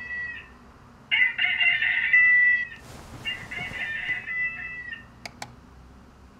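Small white fluffy dog whining in three long, high calls, each dropping in pitch at its end, with a short rustle of bedding between the second and third.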